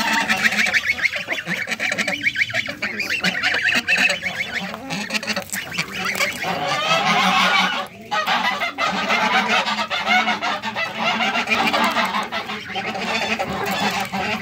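Domestic geese and ducks calling over one another in a steady chorus of honks, with a short lull about eight seconds in.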